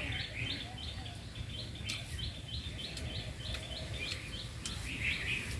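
A small bird chirping in a steady run of short, high notes, about three or four a second, with a few faint clicks.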